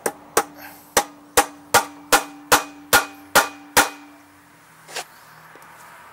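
Hammer striking metal ten times in a steady rhythm, about two and a half blows a second, with a metallic ring under the blows, then one lighter knock about five seconds in.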